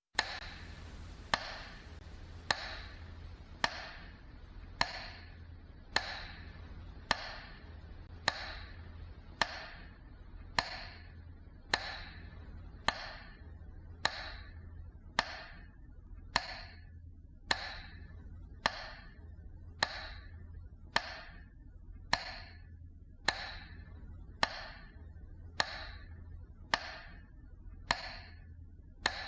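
Slow, even metronome ticks marking a minute of silence, a little over one a second, each with a short ringing tail, over a low steady hum.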